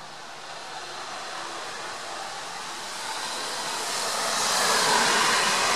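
Steady hiss of falling rain that swells louder about four seconds in and stays loud.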